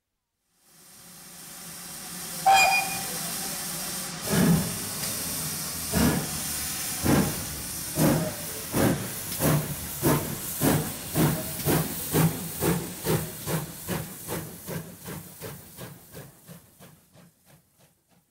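Steam locomotive pulling away: a hiss of steam, a brief sharp note about two and a half seconds in, then steady chuffs that come faster and faster as it picks up speed, fading away near the end.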